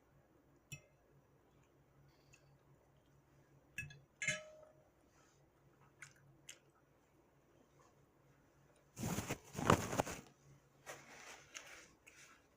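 Close-up eating sounds: scattered soft chewing clicks and crunches, with a louder crunching burst about nine seconds in that lasts about a second.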